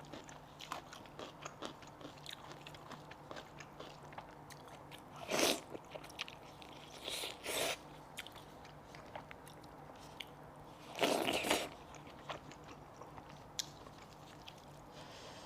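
Close-miked mouth sounds of eating cooked goat head: biting, crunching and chewing, with many small wet clicks and louder crunches about five and a half, seven and eleven seconds in.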